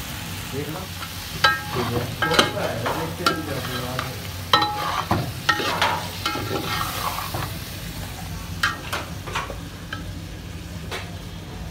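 A metal spoon scraping and clinking against the inside of a metal pot as chicken pieces are stirred, with a steady sizzle of frying in oil underneath. The clinks come irregularly, thickest in the first half and fewer towards the end.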